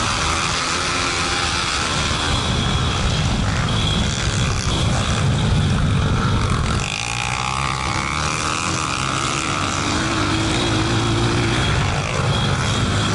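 Pit bike's single-cylinder four-stroke engine running hard under the rider, its note rising and falling with the throttle, over steady rushing noise on the onboard microphone.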